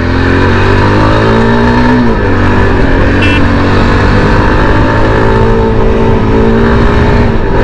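Yezdi Adventure's single-cylinder engine accelerating: its pitch rises, drops with a gear change about two seconds in, then climbs steadily again through the next gear, over wind rush.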